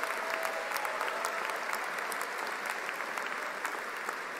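A large audience applauding, a dense steady clapping that eases slightly towards the end.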